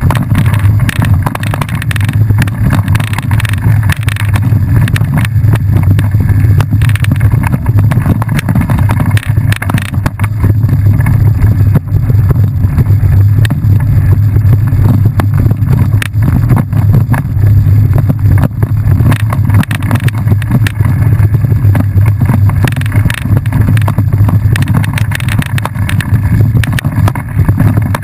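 Mountain bike ridden fast over a bumpy dirt trail: continuous low wind rumble on the microphone, with tyre noise and frequent rattles and knocks from the bumps.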